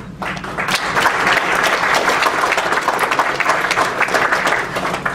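Audience applauding, many hands clapping together, starting a moment in and holding steady.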